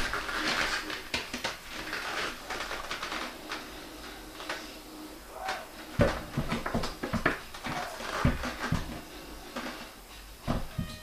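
Irregular knocks, bumps and rustling as a porcelain toilet bowl is lowered onto the wax ring and settled over the floor bolts, with a cluster of sharper thumps from about six seconds in.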